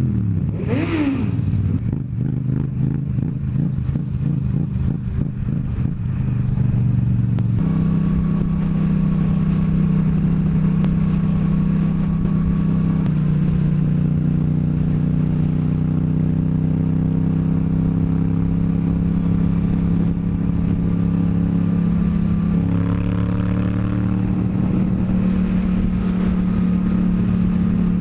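Motorcycle engine running steadily under way, its note stepping up and down in pitch a few times, about 8, 13 and 23 seconds in. A brief whoosh sweeps past about a second in.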